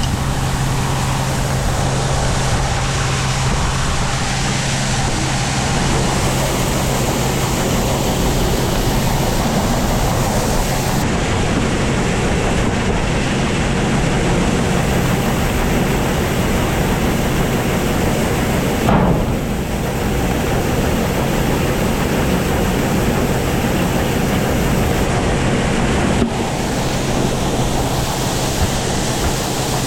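Steady, loud rushing noise with a constant low hum beneath it, like a large fan or blower running. About 19 seconds in, a short rising squeak.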